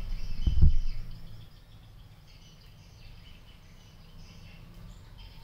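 Two low thumps about half a second in, then a quiet background with faint, high-pitched chirping.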